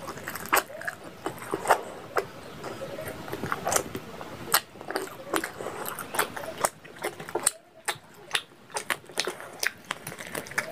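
Close-miked chewing of rice and curry with the mouth full: wet smacking and many sharp lip and mouth clicks, quieter for a moment a little past the middle.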